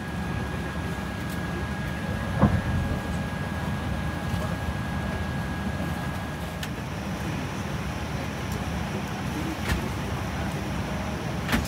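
Steady low cabin hum inside a Boeing 787-10 airliner, with a faint thin high tone that stops about seven seconds in. Three short sharp clicks or knocks sound over it, the loudest about two and a half seconds in.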